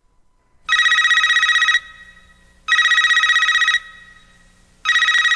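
Telephone ringing: two rings of about a second each with about a second between them, and a third ring beginning near the end, each ring a steady trilling tone.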